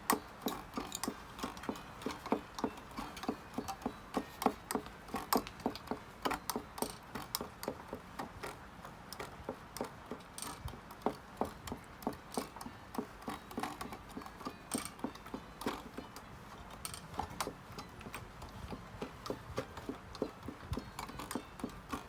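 A cat chewing a crunchy treat: a long run of small, sharp crunches, a few each second.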